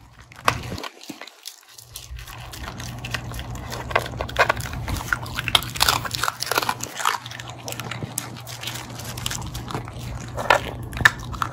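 Pomsky puppy crunching and chewing a Milk-Bone dog biscuit close to the microphone: a dense, irregular run of crisp bites and crunches, with small clicks as she picks crumbs off a tiled floor.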